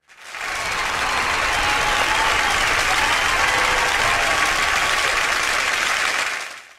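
Crowd applauding, fading in at the start and fading out near the end.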